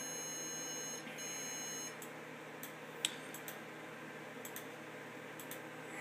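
A homemade intruder alarm panel's loudspeaker sounding a steady, high electronic beep tone with brief breaks, which cuts out about two seconds in although it should keep going: a fault in the panel's unfinished program. A few sharp clicks follow.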